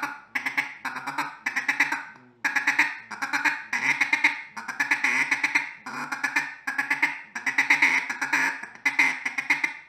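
Mallard feed chuckle blown on a duck call: a rapid ticka-ticka chatter in short runs with brief gaps between them. The hand is cupped around the end of the call, giving a deeper, more mellow tone.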